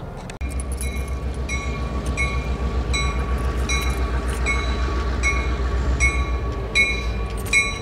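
A railroad bell ringing steadily, about three strikes every two seconds, over a deep rumble from a diesel freight train. Both start suddenly about half a second in.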